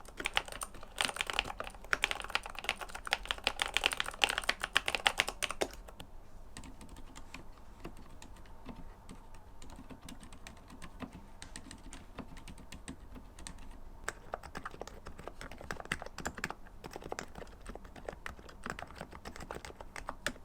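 Fast typing on a mechanical keyboard, a dense run of sharp key clicks. The keystrokes are loud and bright for about the first six seconds, then go much softer, and grow louder again about two-thirds of the way through.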